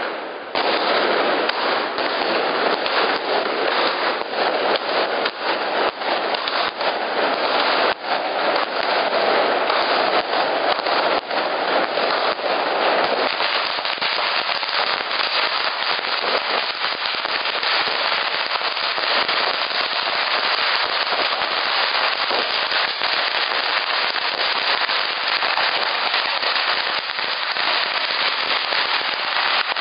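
A long string of Chinese firecrackers going off in a dense, continuous rattle of rapid sharp cracks. It thins slightly about halfway through.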